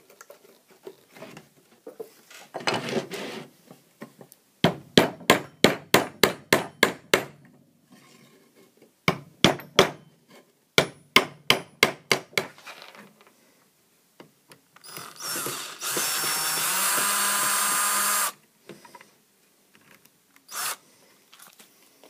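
Claw hammer knocking on the wooden pieces of an old teak cabin ladder in three quick runs of blows, about four a second, as the cleats are knocked loose. Near the end, a cordless drill runs steadily for about two seconds, speeding up as it starts.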